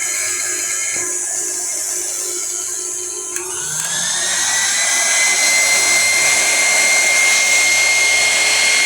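KitchenAid Artisan stand mixer motor running steadily, now working normally after a new bushing and lock washer cured its grinding noise. A click about a third of the way in, then the motor's whine rises and settles at a higher steady pitch as it speeds up.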